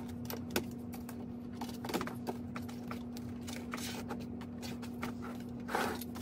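Plastic panels and connectors of a cube storage organizer clicking and tapping as they are fitted together, in scattered irregular knocks, with a longer scrape near the end. A steady low hum runs underneath.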